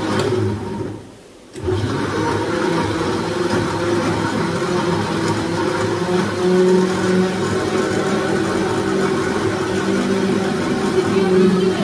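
Electric mixer grinder running with its steel jar held down by hand, a steady motor hum. It stops briefly and starts again about a second and a half in.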